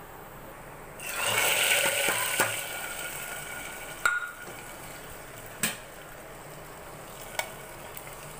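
A hot tadka of fried onions in oil poured into a pressure cooker of nihari gravy, sizzling loudly about a second in and dying away over the next couple of seconds. Three sharp clicks follow.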